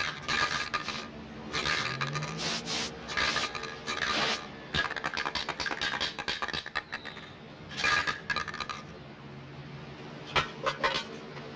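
Aerosol spray-paint can hissing in a series of separate bursts, each about a second long, with short pauses between them as paint is sprayed onto a wall.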